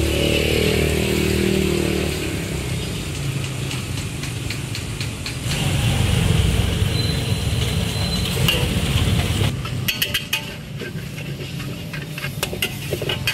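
Noodles frying in a wok, a metal spatula scraping and clanking against the wok, with quick clicks and scrapes in the last few seconds. A low engine drone runs under the first half.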